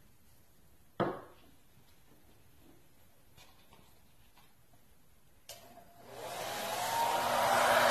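A sharp knock about a second in. Near the end a click and a hair dryer switching on, its blowing rising to full speed and holding steady.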